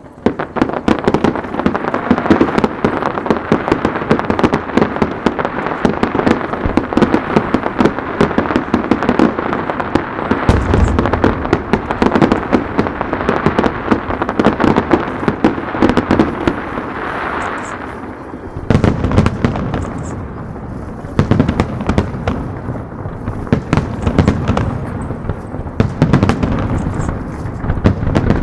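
Fireworks display: a rapid-fire barrage of bangs and crackling bursts that starts abruptly, with deeper booms from larger shells joining about ten seconds in and again from about nineteen seconds.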